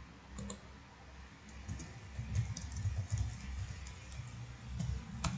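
Typing on a computer keyboard: a quick run of key clicks, with one louder keystroke near the end.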